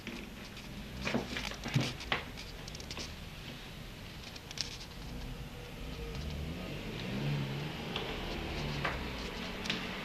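A few sharp knocks and clicks, the loudest about two seconds in, with a low wavering droning hum coming up in the second half, like a distant engine.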